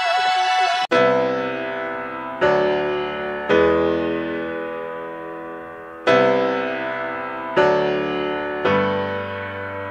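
Background music: slow keyboard chords, six in all, each struck and left to fade. Before them, a held music note cuts off about a second in.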